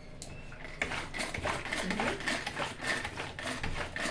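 Tupperware Extra Chef pull-cord mixer being worked by hand, a fast mechanical rattle of clicks starting about a second in, as it whisks eggs into melted chocolate and butter.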